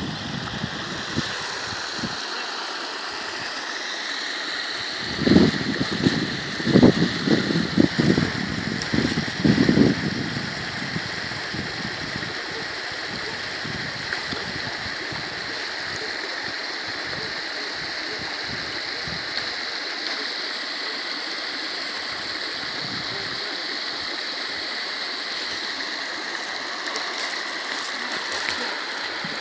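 Small stream pouring into a pond over a low stone edge: a steady rushing and splashing of water. A few louder, uneven low rumbles come and go between about five and ten seconds in.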